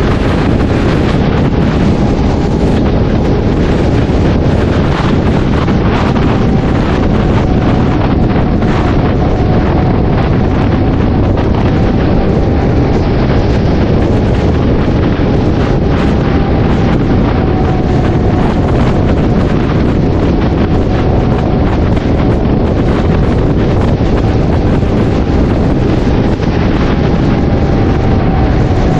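Loud, steady wind rushing over the microphone of a moving motorcycle, with a faint steady tone that wavers slightly in pitch beneath it.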